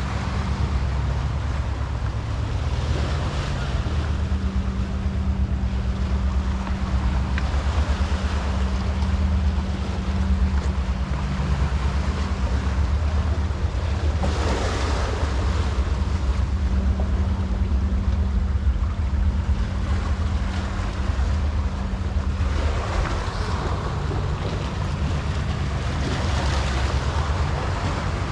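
A steady low engine drone, with sea water washing in swells every few seconds.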